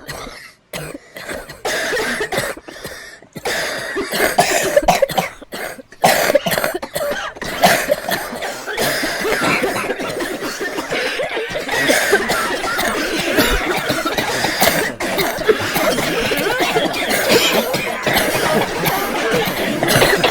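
People coughing over and over: separate coughs with short gaps at first, then from about eight seconds in many coughs overlapping into a continuous din.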